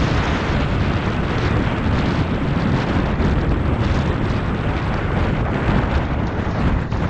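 Wind buffeting an action camera's microphone over a 250 cc dual-sport motorcycle engine running steadily while riding a gravel road.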